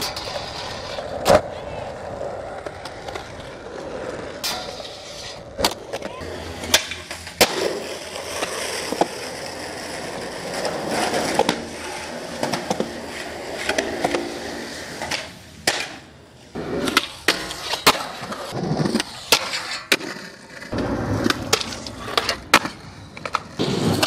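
Skateboarding: urethane wheels rolling on hard ground, broken by many sharp clacks of the board popping and landing, coming thick and fast in the last several seconds.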